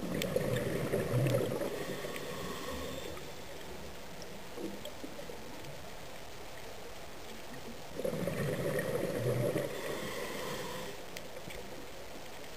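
Exhaled air bubbles from a diver's breathing, heard underwater: two gurgling bursts, each about three seconds long and about eight seconds apart, over a steady hiss.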